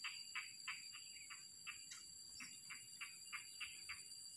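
Faint, regular chirping from a small animal in the rice paddy, about three short chirps a second, over a steady high-pitched insect drone.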